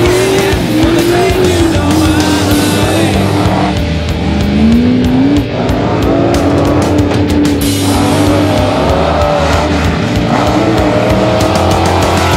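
A rock song with a steady beat plays over the engine of an off-road race truck, which revs up and down as it drives.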